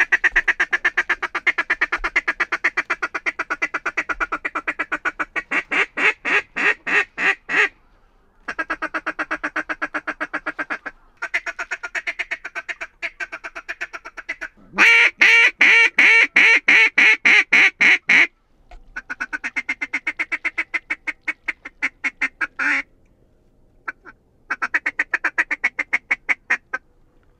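Duck call blown in long runs of rapid quacks, six series with short breaks between them, the loudest about halfway through, calling to ducks circling overhead.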